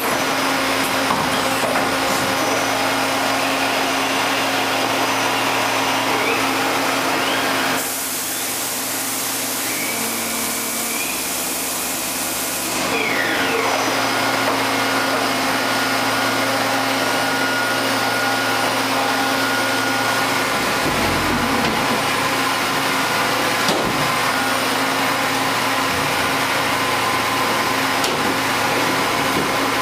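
Niigata HN100B horizontal machining center running: a steady machine whine and hum holding a few constant tones. From about eight to thirteen seconds in, a high hiss takes over and the hum dips, then the steady running returns.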